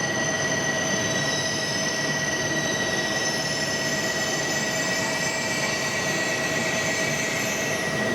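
Tohoku Shinkansen E2 series train at the platform, a steady mechanical noise with several high, unchanging tones that neither rise nor fall.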